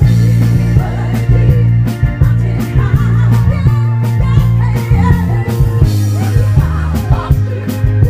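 Live Motown music from a band with women singing lead and backing vocals over guitar, keyboard and drums, played loud through a PA system and heavy on bass.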